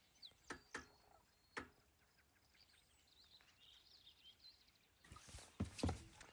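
Very quiet outdoor quiet with faint, short songbird chirps, a few soft clicks early on, and a hiss of noise that comes up near the end.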